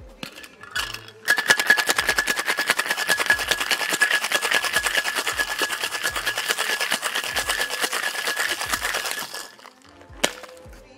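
Ice rattling hard in a two-piece metal cocktail shaker shaken vigorously in a fast, even rhythm, with a ringing tone from the tins; it starts about a second in and stops near the tenth second. One sharp knock follows about a second later.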